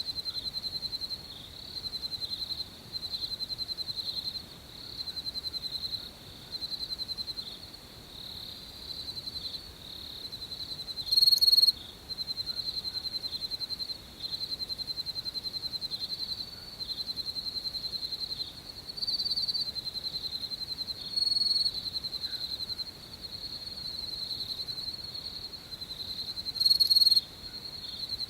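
Crickets chirping at night: high, rapidly pulsed trills repeating in bursts of about a second, with a louder, nearer burst about eleven seconds in and another near the end.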